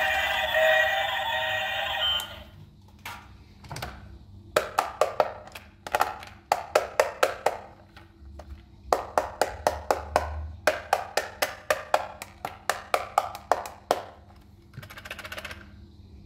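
A battery toy train's electronic sound plays for about two seconds and cuts off. It is followed by hard plastic clicking in quick runs of about four to five clicks a second as the plastic toy trains, including a clear-bodied gear toy, are handled.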